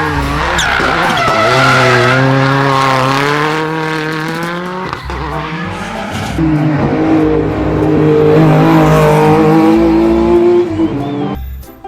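Race car engine sound effect revving, its pitch rising and falling over the first five seconds, then a second, steadier high rev from about six seconds in that cuts off just before the end.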